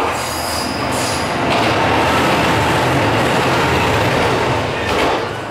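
A loud, steady rumbling rush of noise that sets in at once and falls away about five seconds in, with faint high squeals in the first second or so.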